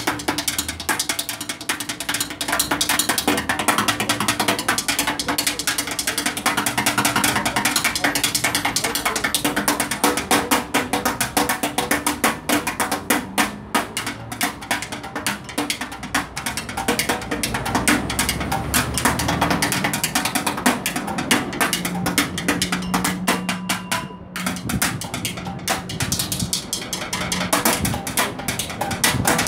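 Street drumming with a pair of drumsticks on an orange plastic litter bin mounted on a pole: a fast, unbroken stream of rapid stick strokes.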